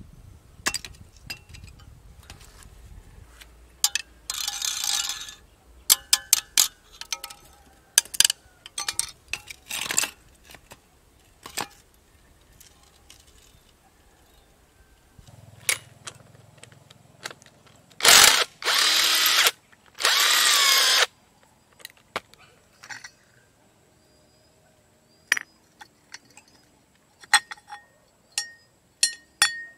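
An old car alternator being taken apart by hand: metal clinks and knocks as it is handled and set down, with several short runs of a cordless drill, the two longest lasting a second or two each about two-thirds of the way through.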